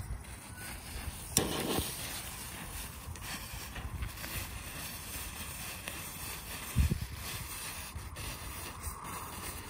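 Small ground strobe fireworks flashing on pavement: a sharp crack about a second and a half in, a dull thump near seven seconds and a few faint ticks, over wind on the microphone.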